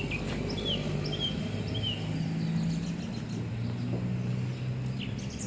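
A motor vehicle's engine running steadily nearby, its low hum stepping up and down in pitch a few times, with a few short bird chirps over it in the first couple of seconds.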